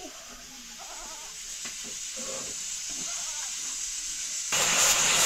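Steam hissing steadily from a pressure cooker on a wood fire, growing louder and becoming much louder near the end.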